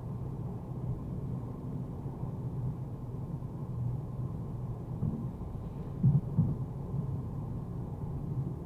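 Low, steady driving rumble of a Mercedes-AMG A35 on the move, engine and road noise blended into a muffled drone. A few dull thumps stand out about five and six seconds in.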